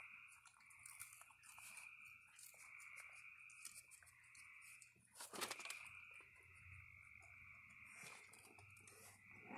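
Faint crunching and rummaging of a raccoon feeding in a pile of dry cereal and cookies on a wooden table, with one louder scraping rustle about halfway through. A steady high night chorus of calling frogs or insects runs underneath.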